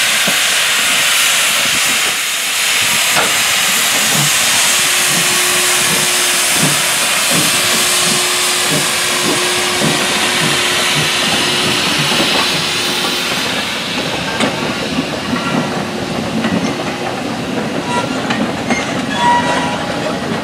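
Industrial saddle-tank steam locomotive moving off with its cylinder drain cocks open: a strong steady steam hiss with regular exhaust beats beneath it. For the last several seconds the hiss fades and loose-coupled goods wagons roll past, their wheels clicking and clanking over the rail joints.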